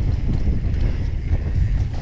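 Wind buffeting the microphone of a bike-mounted GoPro Max during a fast mountain-bike descent. Under it is the steady rumble of knobby tyres on hard-packed dirt, with a few sharp clicks and rattles from the bike.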